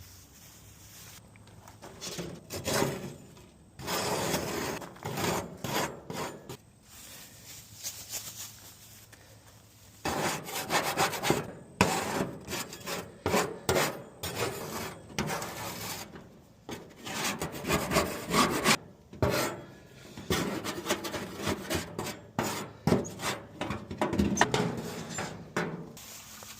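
A grill being scrubbed: repeated back-and-forth scraping strokes on the grate, irregular in pace, with a pause of a few seconds about a third of the way in.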